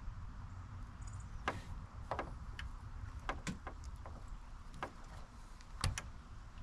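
A few separate sharp clicks and short scrapes, about six in all and the loudest near the end, of a blade and hands working around 6-gauge battery cable to strip its insulation back further.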